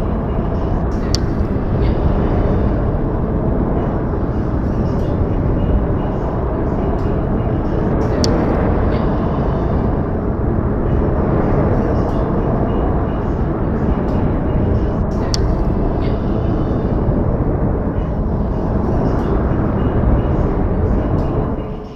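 Steady low rushing noise of an outdoor snowfall field recording, with a few faint light ticks scattered through it.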